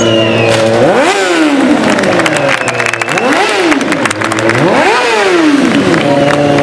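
Motorcycle engine held at steady revs, then blipped up and back down three times before settling at steady revs again, with a patter of sharp clicks in the middle.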